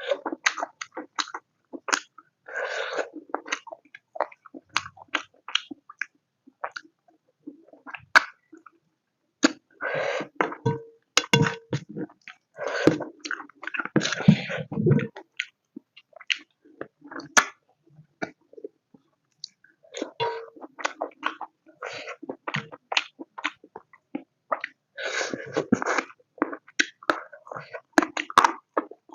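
Close-miked chewing and mouth sounds of someone eating pork curry with rice: scattered short clicks and smacks, with denser stretches of chewing every several seconds.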